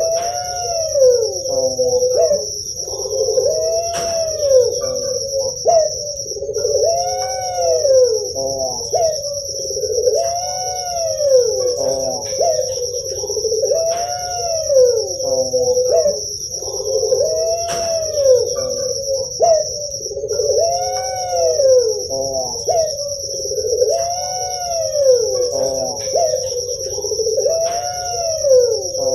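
Puter pelung (Barbary dove) cooing: a rolling coo that rises and falls in pitch, repeated about every three and a half seconds. A steady high-pitched buzz runs underneath.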